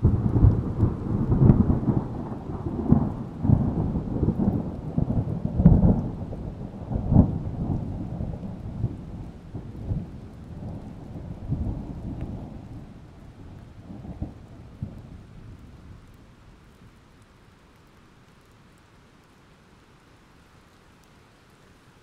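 A thunderclap breaks suddenly and rolls on in a run of cracks and deep rumbles, fading away over about fifteen seconds. Faint steady rain hiss remains after it.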